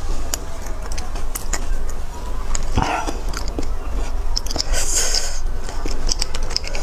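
Close-miked eating sounds of beef bone marrow: wet sucking and chewing, with many small clicks as a metal spoon scrapes marrow from inside the bone, over a steady low hum.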